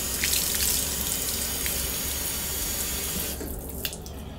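Water running from a wall-mounted metal tap over hands and splashing onto a tiled floor, a steady rushing hiss that stops about three quarters of the way through.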